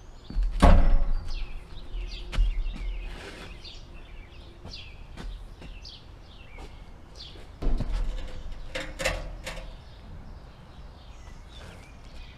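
Songbirds chirping repeatedly, with a few sharp knocks and thumps, the loudest about a second in and more around eight to nine seconds in.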